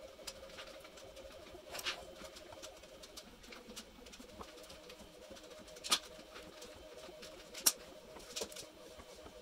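A few light, sharp clicks and taps of 3D-printed PLA lamp segments being handled and set down on a wooden floor, the loudest about six seconds and about eight seconds in, over a faint steady hum.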